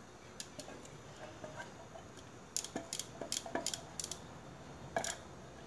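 A spatula scraping and knocking against a saucepan as thick chocolate sauce is poured out of it, a few light clicks at first, then a quick run of clicks and scrapes in the middle and one more knock near the end.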